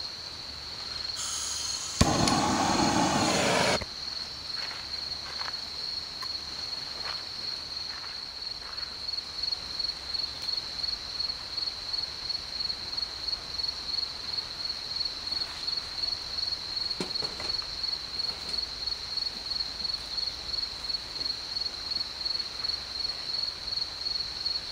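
Crickets chirping in a steady high, pulsing trill, over a wood fire crackling and popping in a fire pit as dry, seasoned firewood burns hard. About two seconds in, a loud rushing noise lasts for nearly two seconds.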